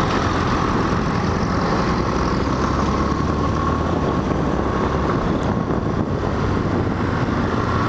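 Motorcycle engine running steadily on the move in city traffic, with a continuous road and wind rush.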